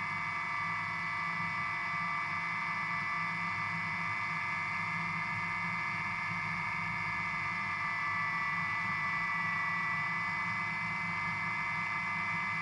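A drone's motors and propellers spinning steadily at idle while it sits on the ground, a steady whine of several tones.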